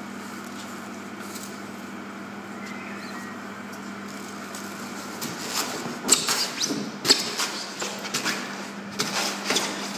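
Steady low hum of a workshop hall. From about halfway there is a run of irregular sharp knocks and scuffs as workers hack at and handle large blocks of foam core on a concrete floor.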